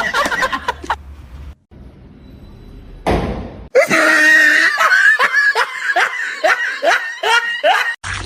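Loud laughter: a quick string of repeated cries, about three a second, through the second half, after a short burst of noise about three seconds in.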